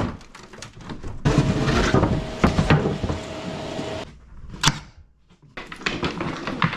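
Knocking, bumping and scraping on wooden cabinetry as an old cabinet is worked loose by hand, with one sharp knock about two-thirds of the way through.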